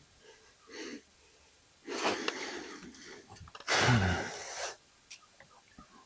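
A man breathing hard with effort: a few heavy exhales, the loudest about four seconds in ending in a low, falling strained groan.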